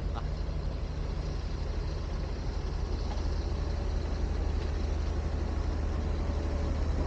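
Steady low rumble of wind buffeting the microphone of a 360 camera held high on a long selfie stick, with a faint steady hum in the second half.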